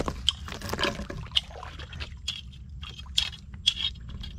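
Feet wading through soft, waterlogged mangrove mud: irregular wet squelches and small splashes.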